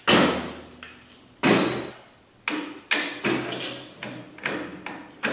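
Heavy metal clunks and knocks, about seven in all, as a go-kart engine is set upside down into a steel frame and its mounting bolt is worked through the brackets. The first two, at the start and about a second and a half in, are the loudest, and each dies away quickly.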